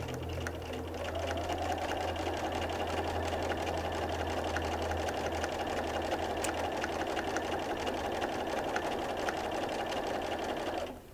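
Electric sewing machine running steadily, its needle stitching a seam through two layers of flannel; it speeds up slightly about a second in and stops just before the end.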